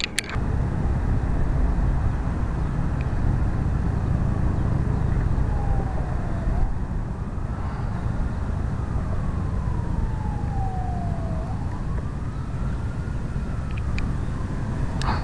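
Emergency vehicle siren wailing faintly, its pitch rising and falling slowly over several seconds at a time, over a steady low rumble. A few sharp knocks at the very start.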